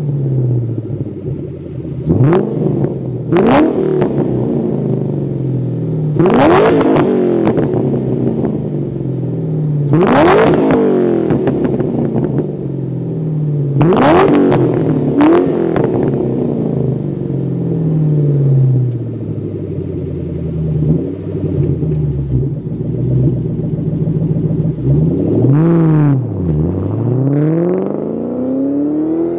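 Supercharged 4.6-litre DOHC V8 of a 2003 Ford Mustang SVT Cobra, breathing through a catted X-pipe and Magnaflow mufflers, revved sharply about six times from idle, each rev climbing and falling back. After a stretch of idling it pulls away, the exhaust note rising as the car accelerates off near the end.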